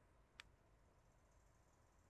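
Near silence: faint background hiss, with one short click about half a second in.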